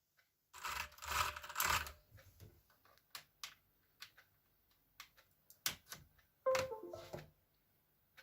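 Mechanical keyboard with clicky blue switches: a fast flurry of key clicks, then single keystrokes at irregular intervals, each a quick pair of clicks. Near the end comes a loud key hit with a short ringing that steps down in pitch.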